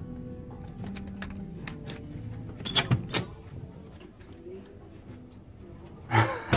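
Cabin door being opened: a few sharp latch clicks and knocks about three seconds in, over faint music from the cabin's television.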